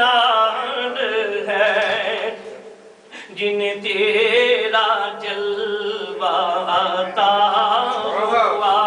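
A man chanting a naat, a devotional poem in praise of the Prophet, unaccompanied into a microphone, in long ornamented melodic phrases with a short breath pause about three seconds in.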